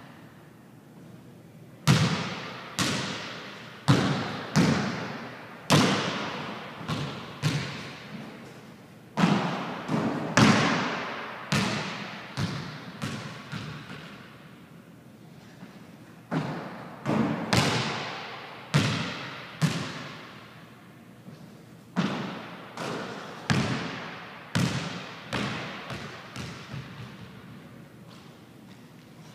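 Basketball bouncing repeatedly on a hardwood gym floor, each bounce echoing around the large empty gym. The bounces come in several runs with short quiet gaps between them.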